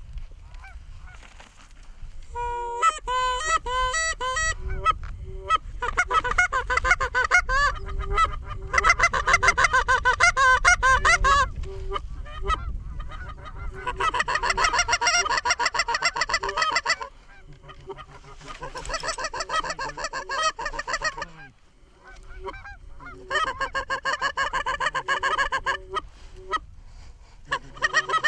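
Geese honking and clucking in fast runs of calls, each run a few seconds long with short pauses between.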